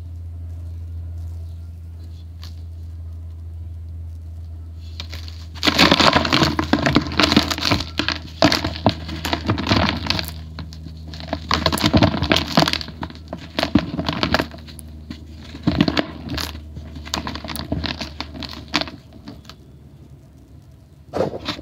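A dry, grey powdery block crumbled and crushed between bare hands into a plastic tub: loud crunching and crackling in several spells, starting about five seconds in, with short pauses between handfuls. A steady low hum runs underneath.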